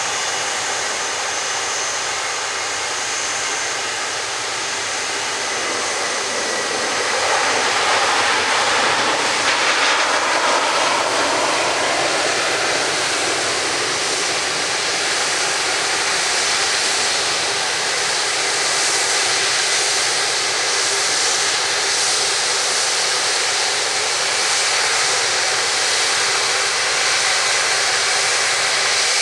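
Jet engines of an Airbus A330-343 (Rolls-Royce Trent 700s) running: a steady rushing hiss that swells about eight seconds in and stays a little louder after.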